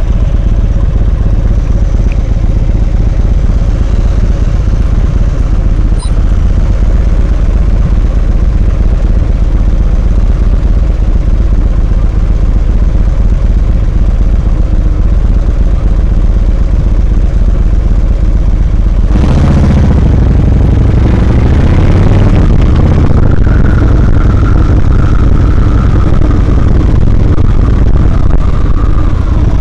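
Motorcycle engine idling with a steady low rumble. About two-thirds of the way through it pulls away, revving up through the gears, then runs steadily under way, heard close up from a handlebar-mounted camera.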